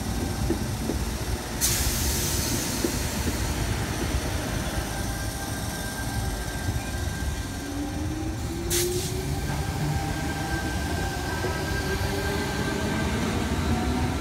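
Tangara electric train with chopper-controlled traction motors, running over a steady rumble. The motors whine in rising tones, once past the middle and again near the end, and there are two sharp noisy bursts, one early and one about two-thirds through.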